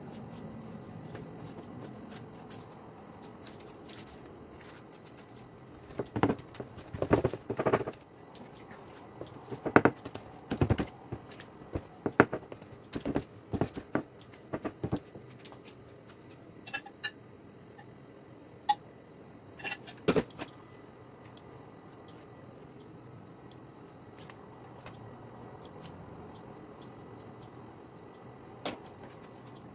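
Irregular clicks, taps and knocks of a plastic dough scraper and hands pressing a thin sheet of dough down and tucking it in along the rim of a metal baking tray, bunched in the middle stretch with a few single knocks later.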